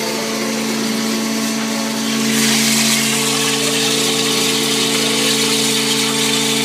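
Flushing machine for hydraulic cylinder tubes running with a steady pump hum, while flushing fluid jets out of the tubes into the tank. The rushing hiss of the spray gets louder about two seconds in.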